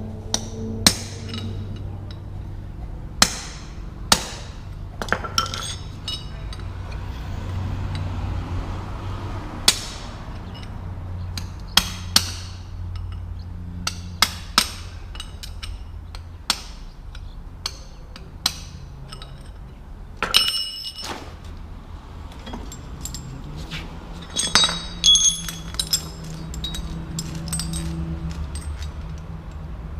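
Metal tools and parts clinking and tapping against each other at irregular intervals. One strike about two-thirds of the way through rings briefly, and a steady low hum runs underneath.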